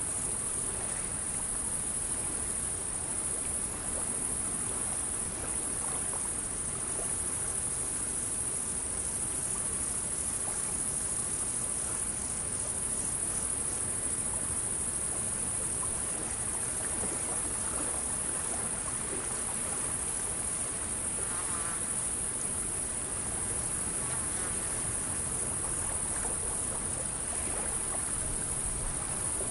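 Steady, high-pitched chorus of insects such as crickets, unbroken throughout, over a soft even background haze.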